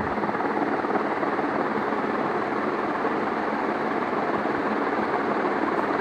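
CEC Deluxe 48-inch ceiling fan with curved blades running at speed: a steady whoosh of air from the spinning blades.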